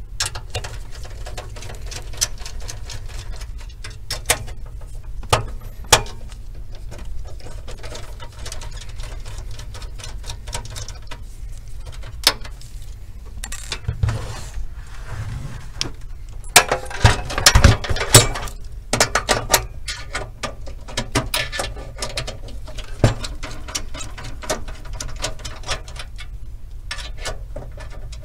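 Small electric screwdriver working case screws, with sharp clicks and knocks from the steel computer case and its parts being handled. A busy run of knocks and rattles comes about two-thirds of the way through.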